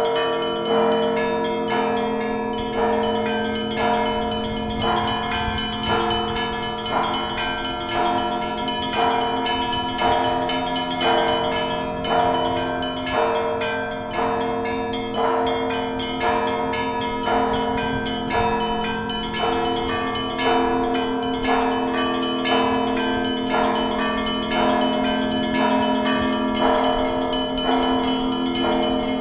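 Russian Orthodox church bells ringing a steady rhythmic peal: many bells of different pitches struck about once a second over the lingering hum of the larger bells.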